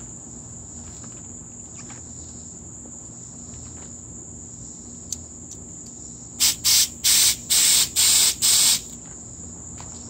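Bicycle pump inflating a punctured inner tube: six quick hissing strokes of air a little past halfway through. A steady high insect trill runs underneath.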